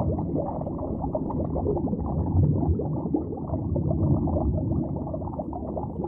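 Title-sequence sound effect: a dense, muffled rumbling bed with nothing in the upper range, running without a break.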